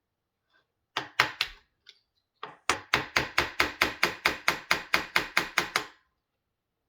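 Hammer blows on metal: three strikes, then a quick even run of about twenty light blows, roughly six a second, working at a stuck rifle end cap.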